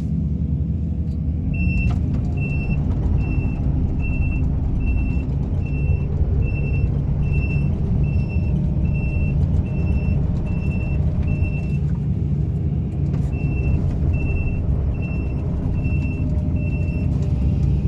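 Excavator's diesel engine running steadily, with its travel alarm beeping about every 0.6 seconds as the machine moves on its tracks; the beeping pauses briefly about twelve seconds in, then starts again.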